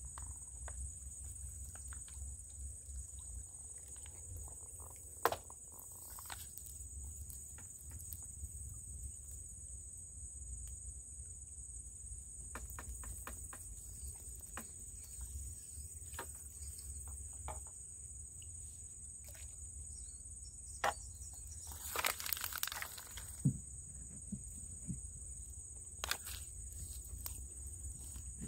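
A steady, high-pitched chorus of insects, with scattered light clicks and a brief rush of noise about three-quarters of the way through.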